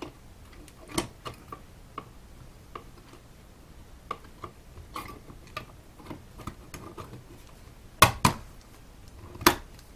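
Small clicks and taps of an Intel NUC mini PC's bottom cover being fitted onto the chassis and the unit being handled, with three louder knocks near the end.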